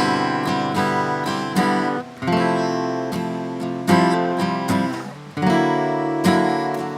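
Acoustic guitar strummed in a steady instrumental passage, chords ringing out with a fresh strum every second or two and no singing.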